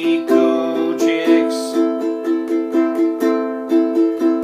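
Ukulele strummed in a steady, even rhythm of chords, an instrumental break with no singing.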